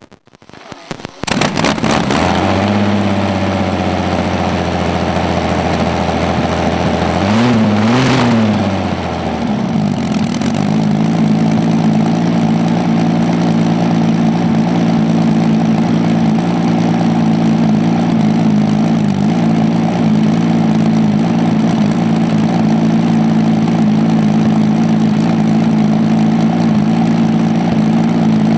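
Rolls-Royce Meteor 27-litre V12 petrol tank engine on open stub exhausts starting with a few sharp bangs about a second in and catching. It idles low and steady, revs up and back down once around eight seconds in, then settles into a steady faster idle.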